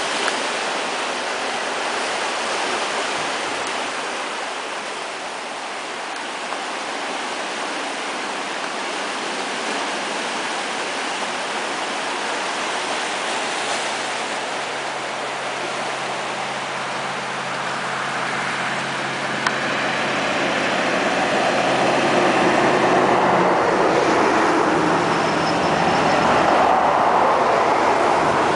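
Sea surf breaking and washing over a rocky shore, a steady rush that grows louder in the last third. A low steady hum runs through the middle and stops about five seconds before the end.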